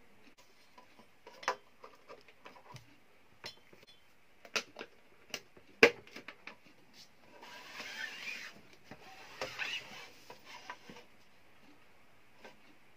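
Handling clicks and knocks as a power cord's plug is pushed into a bench power supply's IEC inlet and into a power strip, the loudest sharp click a little before halfway. Then two stretches of scraping as the metal-cased power supply is slid and turned round on a wooden table, with a few more light knocks.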